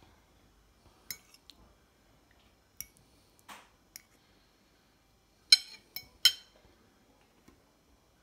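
Metal fork clinking against a ceramic plate: a few scattered light clinks, then three sharp, louder clinks in quick succession a little past the middle.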